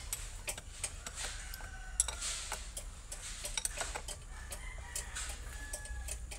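Ratchet wrench clicking in quick, irregular runs of ticks as the bolts on a truck differential are turned and tightened.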